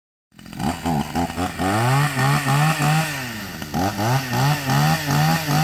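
Two-stroke chainsaw engine revved in quick throttle blips, its pitch rising and falling about three to four times a second. It starts about half a second in and eases briefly a little after three seconds before the blips resume.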